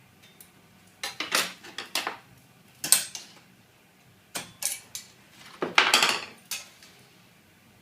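Light metallic clatter in several short clusters: hand tools knocking and scraping against a length of steel cable tray held in a vice while it is measured and marked out.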